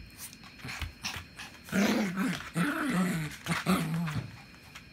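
Small mixed-breed dog play-growling at a bare foot: one wavering growl lasting about two and a half seconds that dips lower near its end. A few soft knocks come just before it.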